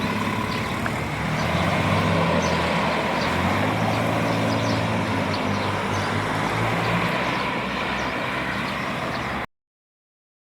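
A motor vehicle's engine running steadily, with outdoor traffic noise, cutting off abruptly near the end.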